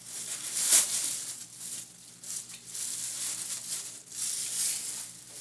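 Plastic bag crinkling and rustling in irregular bursts, the loudest just under a second in.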